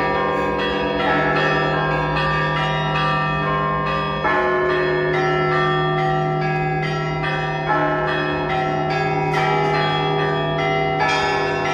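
Orthodox church bells ringing a peal from a bell tower: smaller bells struck in quick succession, about two strokes a second, over a steady low hum from a large bell, with heavier strokes about four and eight seconds in. This is the peal that calls the faithful to the Sunday Divine Liturgy.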